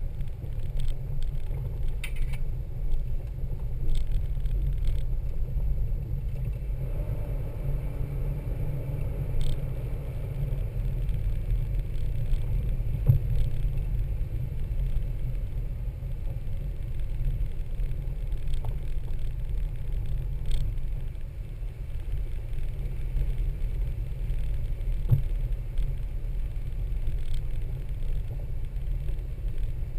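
Toyota Land Cruiser 80-series driving on a trail: a steady low rumble with scattered knocks and rattles.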